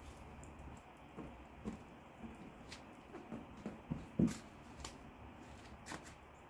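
Faint, scattered taps and clicks of hands pressing a plastic window weatherstrip trim and its clips into place on a minivan door, with the loudest knock about four seconds in.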